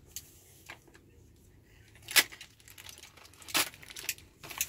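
Small cardboard toy box and its packaging being torn open by hand: a few sharp rips and crinkles, the loudest about two seconds in, another about a second and a half later and one near the end.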